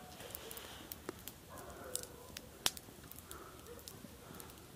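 Wood campfire crackling faintly, with scattered sharp pops at irregular intervals and one louder pop a little past halfway.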